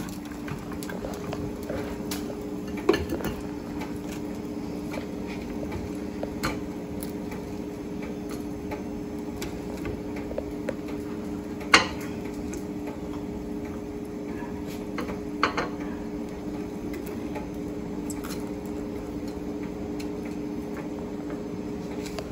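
Metal utensils clinking against a wire grill rack and a plate as grilled meat is lifted off: a few scattered sharp clinks, the loudest about halfway through, over a steady electric hum.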